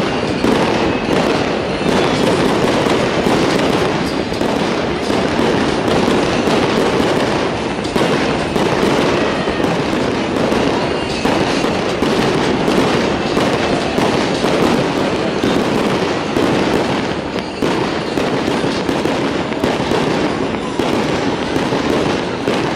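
Fireworks display going off in a dense, unbroken barrage of bangs and crackles.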